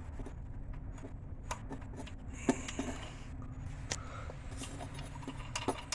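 Scattered light clicks and scrapes of a wing nut being screwed down onto the air cleaner lid's stud, over a steady low background hum.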